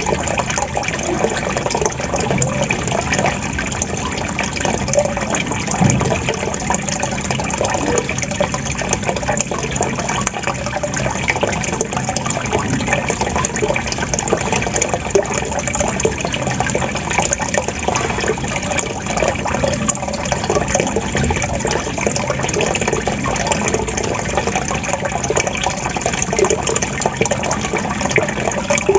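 Water trickling and gurgling steadily, a continuous bubbling flow.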